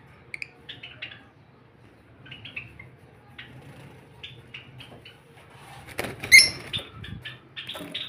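Caged lovebirds and Java sparrows chirping in short, high calls, with one loud shrill squawk about six seconds in, amid a brief rustle.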